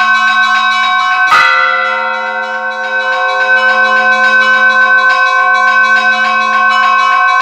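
Russian Orthodox church bells ringing. Small bells chime in a fast, even rhythm of about five strokes a second. A larger bell is struck once about a second in and rings on.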